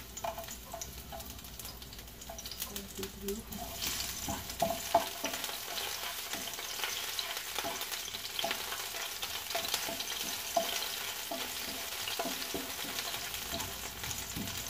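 Chopped garlic sizzling in hot oil in a frying pan, with light knocks and scrapes as a wooden spatula stirs it. The sizzle grows louder about four seconds in.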